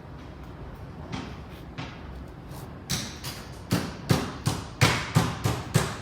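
A low steady background noise, then from about three seconds in a fast, even run of sharp knocks, roughly three a second, getting louder toward the end.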